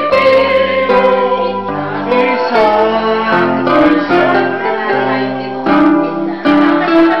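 Small group of women singing together in unison, holding notes that change every second or so, accompanied by an electronic keyboard.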